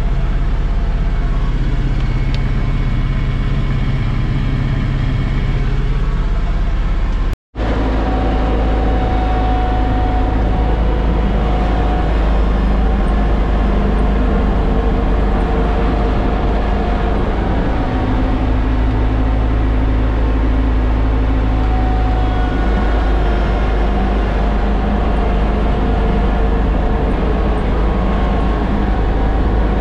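John Deere X729 compact tractor's three-cylinder diesel engine running steadily, heard from inside its enclosed cab, with a sudden dropout to silence lasting under half a second about seven seconds in. After the dropout the tractor is driving.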